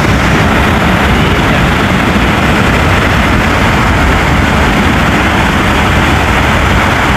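Steady road and wind noise of a small Fiat Uno car driving at speed, heard from inside the car, with a heavy low rumble and the engine running underneath.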